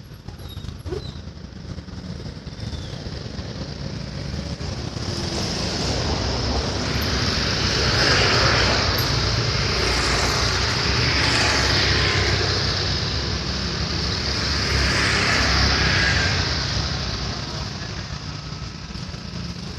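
Road traffic: engine and tyre noise of passing vehicles that builds, stays loud through the middle, then fades.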